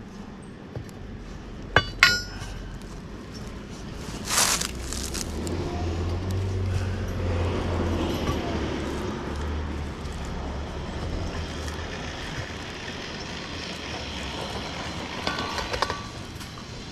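Steel curb-stop key clinking against the buried water shutoff valve and its service box as it is worked, a couple of sharp metallic clinks with a short ring about two seconds in. A low rumble swells and fades through the middle.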